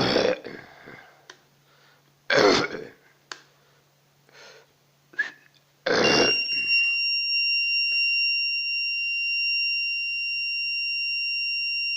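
Three loud, short snorting snore imitations made into the microphone of a homemade VOX anti-snoring circuit. On the third, the circuit triggers its piezoelectric buzzer, which starts a steady high-pitched beep and keeps sounding.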